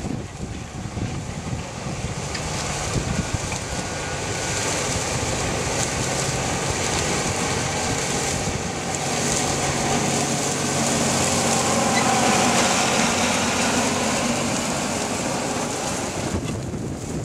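Case IH Steiger 350 HD four-wheel-drive tractor's diesel engine working steadily under load while it pulls a 330 Turbo disc tillage tool through the soil, with the discs rattling in the dirt. The engine grows louder as the tractor comes close, peaks about twelve seconds in, and then eases off. Wind buffets the microphone.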